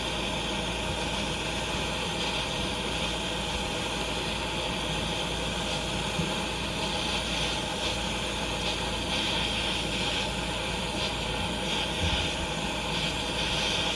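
Propane torch burning with a steady, even hiss, a pretty strong flame, heating a metal key ring.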